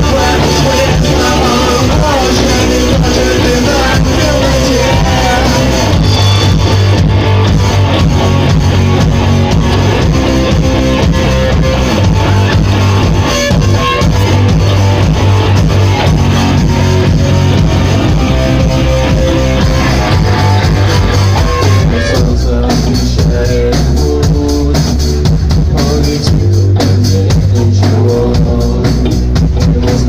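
Rock band playing loud and live: electric guitars, bass and drum kit with a singer on a microphone, heard through the club's PA.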